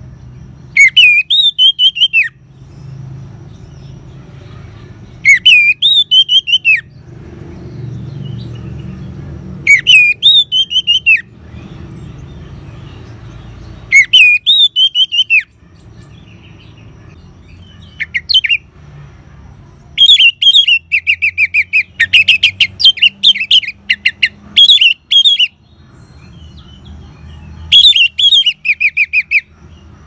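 Orange-headed thrush singing short loud phrases about every four seconds, each a slurred whistle that rises and falls, laced with rapid high twittering. Near the middle the phrases run together for several seconds.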